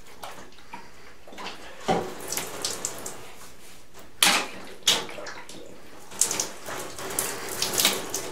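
Water poured from a plastic bottle over a person's head, splashing onto the shower floor in uneven gushes that start about two seconds in.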